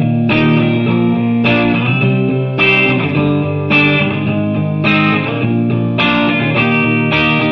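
Background music: a guitar playing ringing chords, a new chord struck about once a second.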